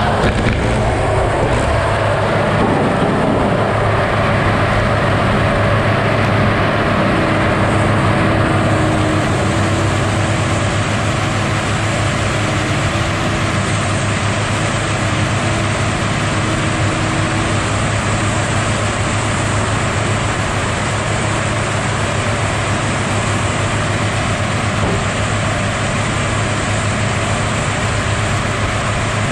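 Heavy log loader's diesel engine and hydraulics running steadily, driving a large circular slasher saw (Kodiak blade); in the first couple of seconds the spinning blade is cutting through a log, then the machine runs on with a steady low hum.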